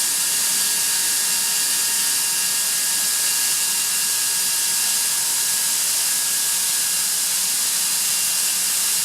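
Atlas Copco ZT132FF oil-free air compressor running steadily: an even hiss with a few faint steady whining tones on top, unchanging throughout.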